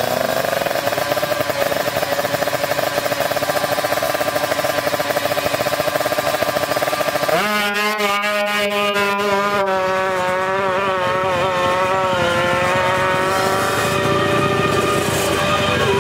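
Two-stroke 155cc drag-racing motorcycle engines running at high revs. The sound changes abruptly about seven seconds in, with a brief run of clicks, and then the pitch wavers and slowly drops.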